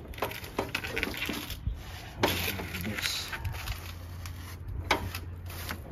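Clicks, small knocks and scraping from hand work on a lawn tractor's metal parts as a bar linkage is moved out of the way, with a rustling, scraping stretch about two seconds in and sharper clicks near the end.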